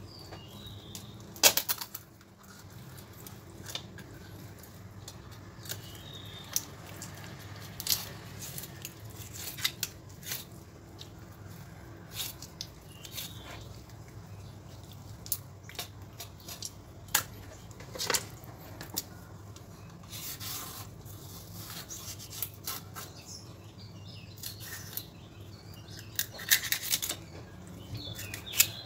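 Kitchen knife splitting a small tilapia open along its backbone on a wooden chopping block: irregular soft scrapes and sharp ticks as the blade cuts along the bones and meets the board.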